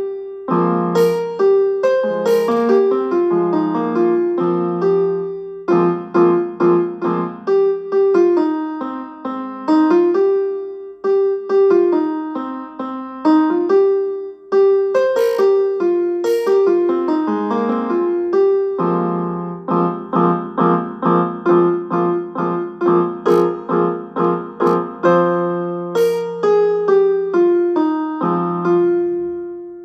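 Ringtone melody on a piano-like keyboard sound: a bouncing tune of short, decaying notes over held low bass notes, with a run of quick repeated notes in the second half. The last note fades out near the end.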